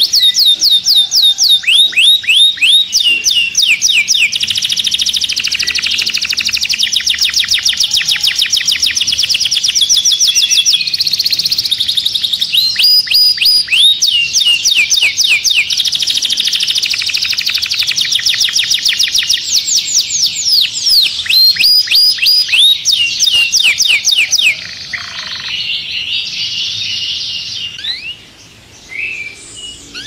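Canary singing: fast trills of quickly repeated high notes that sweep downward, switching to a new repeated note every second or two. The song runs loud, then drops in level about 25 seconds in and turns quieter and broken near the end.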